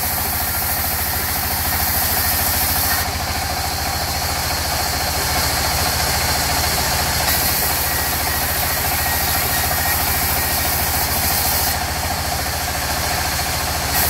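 Sawmill band saw running steadily while its blade cuts lengthwise through a timber plank fed along the table, with a fast, even throb from the machine's drive underneath. The high hiss of the cut strengthens and fades in stretches as the plank moves through.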